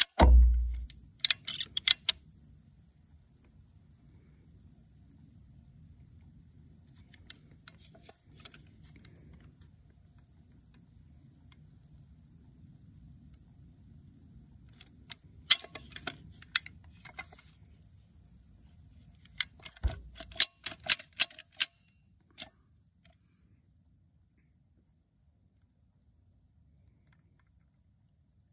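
Caulking gun clicking in short runs as its trigger is squeezed to push sealant around the bolts of a bulkhead fitting, three bursts of several clicks each, over a steady high-pitched drone of insects. A heavy thump right at the start is the loudest sound.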